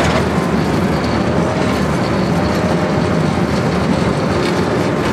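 Tank driving fast over a sandy track, heard from on board: a loud, steady rumble of engine and running gear, with a faint whine above it.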